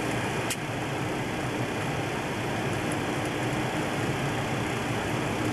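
Steady flight-deck noise of a Boeing 727 in flight: an even rush of air and engine noise with a low hum and a faint steady tone underneath. A single short click about half a second in.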